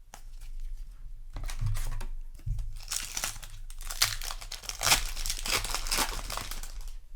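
Foil wrapper of a Magic: The Gathering booster pack crinkling and tearing as it is handled, a run of irregular crackles that starts about a second in and grows louder toward the end.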